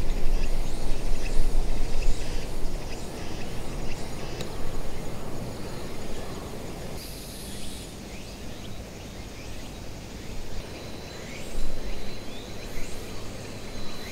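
Outdoor ambience: wind rumbling on the microphone, strongest in the first few seconds, with faint insect and bird calls.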